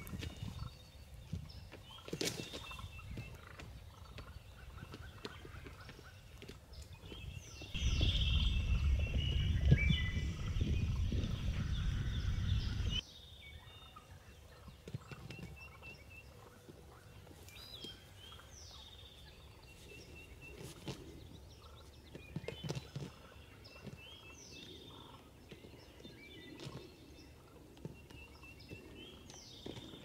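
Wild turkey gobbling among songbirds chirping. A louder stretch of low rumbling noise runs for about five seconds in the middle and cuts off abruptly.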